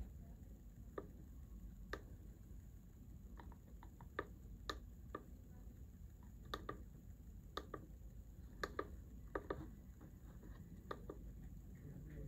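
A sharp click at the very start, then faint, irregular clicks of fingers pressing the push buttons on a brushless sewing-machine servo motor's control box.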